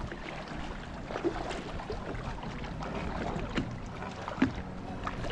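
River water moving along a drift boat's hull, with scattered small knocks and clatter from the boat.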